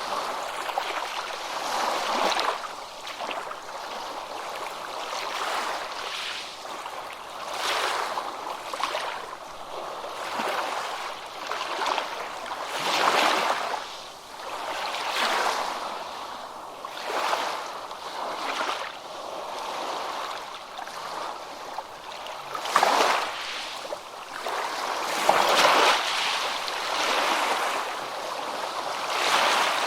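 Ocean waves washing onto a beach, the surf rising and falling in repeated swells every couple of seconds, with a few louder breaks near the end.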